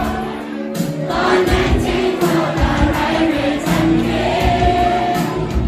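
Live pop-band performance of a ballad with a woman singing the lead; drum and cymbal strikes come in about a second in and keep the beat.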